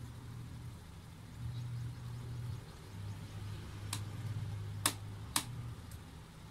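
Small sharp clicks of a screwdriver and plastic case parts as a laptop's bottom panel is screwed back together: a faint click about four seconds in, then two louder ones about half a second apart. A low steady hum runs underneath.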